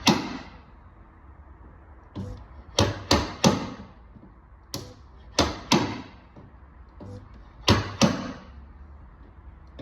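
Sharp hammer knocks on a car's steel sill panel, about ten blows, some in quick groups of two or three, each ringing briefly: the dented metal being worked back out.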